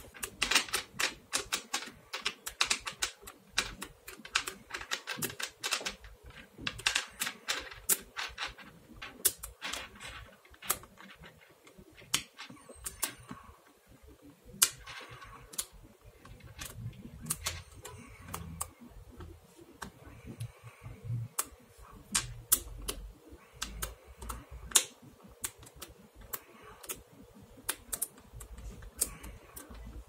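Small magnetic balls clicking as hands pull them off and press them onto a block of magnetic balls. Rapid clusters of sharp clicks come over the first several seconds, then sparser single clicks.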